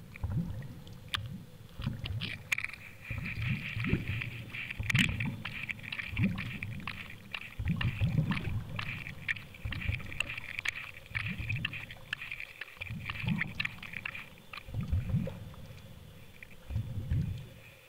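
Muffled water noise through a camera's waterproof housing as it is drawn through the sea: irregular low thumps and sloshing about once a second, with a thin, steady high whine over much of it.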